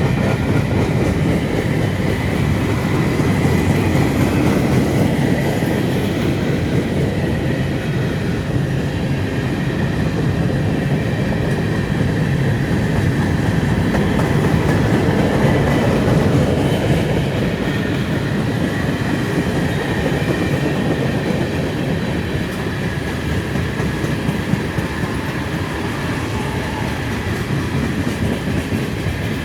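Freight train cars rolling past at steady speed, wheels clattering over the rails, with a faint thin high squeal from the wheels.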